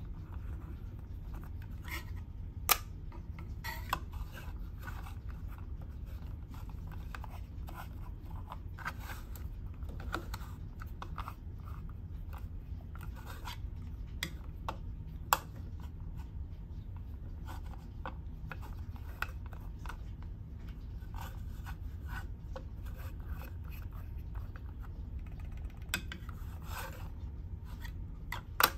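Hard plastic pieces of a small Minion model-kit figure being handled: soft rubbing and scraping with scattered sharp clicks as parts are moved, pulled off and pressed back, over a steady low hum.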